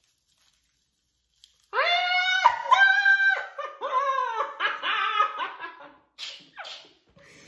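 Women shrieking with laughter: high-pitched squealing laughs start about two seconds in, then trail off into breathy, gasping laughs.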